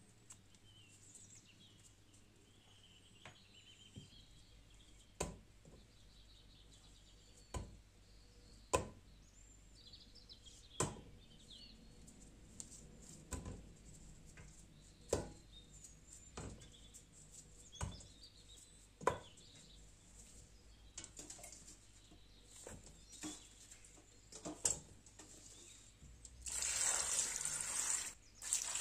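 Plum halves dropped one at a time into a stainless steel pot, a sharp knock every second or two. Near the end, water from a tap runs onto the plums in the pot, louder than anything before it.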